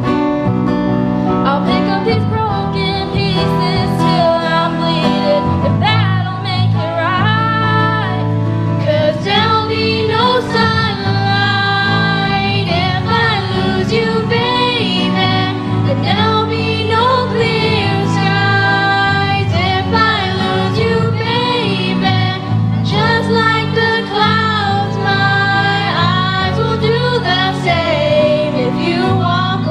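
A small group of teenage girls singing a slow pop ballad into microphones, accompanied by keyboard and acoustic guitar, with sustained chords under the voices.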